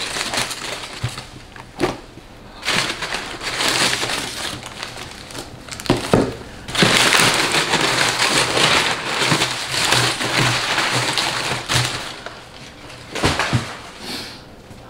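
White tissue paper rustling and crinkling as it is pulled out of a cardboard box, in several spells, the longest and loudest about halfway through, with a few light knocks against the box.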